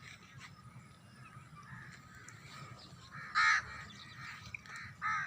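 Bird calls: a few faint short calls, then two louder harsh calls, one about three and a half seconds in and one near the end, over a low steady background.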